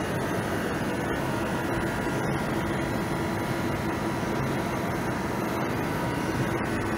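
Steady mechanical drone and hiss of a protein bar production line running, with a few faint steady hums in it.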